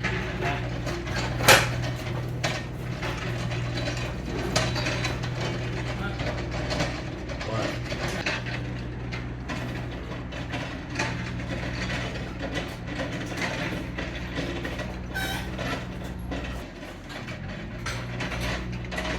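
Clicks, ratcheting and clanks of metal work around an engine installation over a steady low hum, with one sharp loud metal knock about a second and a half in.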